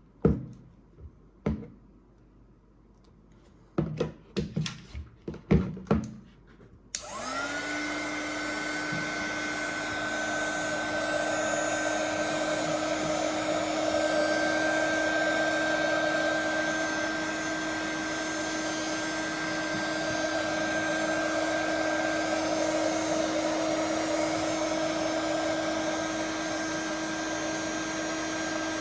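A few sharp clicks and knocks, then about seven seconds in a hot-air blower switches on, its motor quickly spinning up to a steady whine over a rush of air. The phone is being heated to soften the adhesive holding its front screen.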